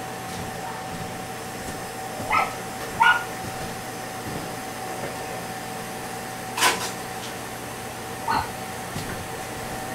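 A dog barking in short, separate yips, four times over several seconds, over a steady electrical hum.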